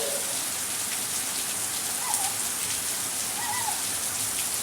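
Heavy rain falling steadily, a dense patter of drops hitting the ground and surfaces.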